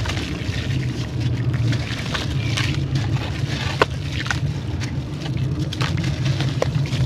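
Grainy sand-textured clay crumbling and crunching, with irregular crackles and snaps, the sharpest about four seconds in, over a steady low hum.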